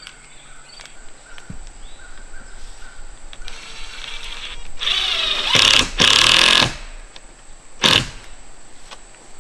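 Cordless drill driving screws into plywood roof sheathing: the motor runs under load for a couple of seconds around the middle, then gives one short burst about eight seconds in.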